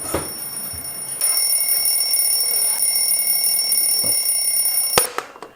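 Alarm clock ringing with a steady, high-pitched ring that gets louder about a second in. It is cut off abruptly by a sharp knock near the end.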